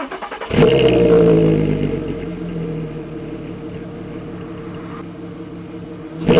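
Volkswagen Golf R32's 3.2-litre VR6 started through its standard, fully resonated stock exhaust: the starter cranks briefly, the engine catches about half a second in and flares up loudly, then settles to a steady idle. A sudden louder burst comes right at the end.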